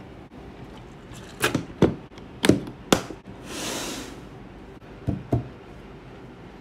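Clear plastic cantilever toolbox being closed: its trays and lid knock and click shut in four sharp strokes. A short scrape follows as the box slides across a wooden desk, then two lighter clicks.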